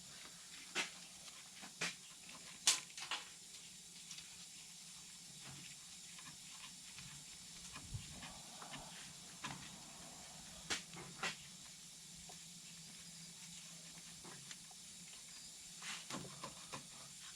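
Scattered small clicks and knocks over a steady low hum, from old nets being pulled off the hooks of an ATV's heel guards and nerf bars by hand.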